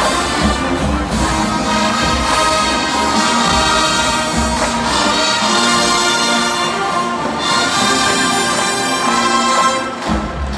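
College marching band playing a brass-led Motown arrangement, trumpets and trombones over a strong low beat. The volume drops somewhat near the end.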